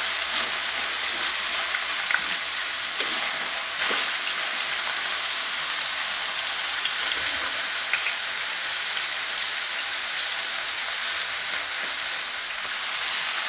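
Diced vegetables (zucchini, carrot and bell pepper) sizzling steadily in oil in a frying pan, with a few faint ticks and pops.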